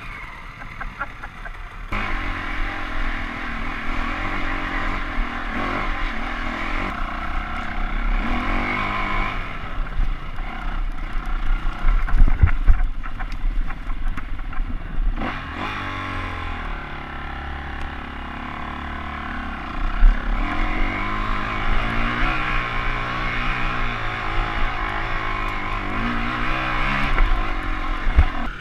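Trail motorcycle engine revving hard under load as it climbs a steep, rough hillside, surging about two seconds in and then rising and falling with the throttle. Heard close up from the rider's own bike, with a few sharp knocks from the rough ground partway through.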